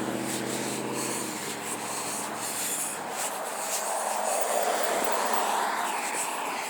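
A passing vehicle's engine hum fading out about a second in, followed by a steady rushing noise with scratchy rubbing on the microphone.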